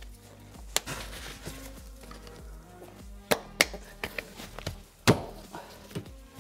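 Background music, with a few sharp knocks and clunks from car seat and interior trim parts being handled. The loudest clunk comes about five seconds in.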